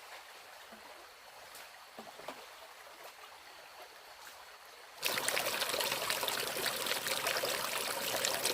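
Running water, faint with a few small drips or splashes at first. About five seconds in it switches abruptly to loud, crackling, rushing water.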